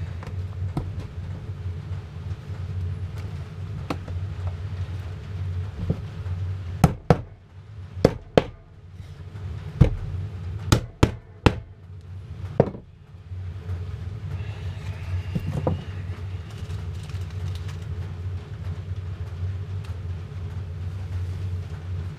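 A hammer tapping small nails into a wooden beehive frame: a run of about nine sharp taps midway through, over a steady low hum.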